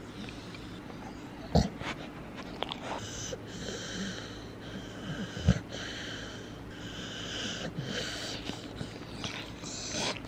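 A dog sniffing and snorting right at the microphone, a run of short noisy breaths in and out about a second apart, with two loud bumps about one and a half and five and a half seconds in.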